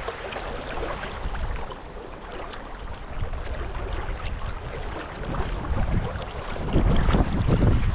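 Steady rush of river current, with wind buffeting the microphone in low surges that are strongest near the end.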